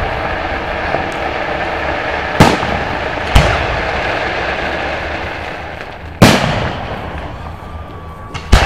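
Aerial firework shells bursting overhead: four sharp booms a second to three seconds apart, the last a quick double near the end, each followed by a fading rumble.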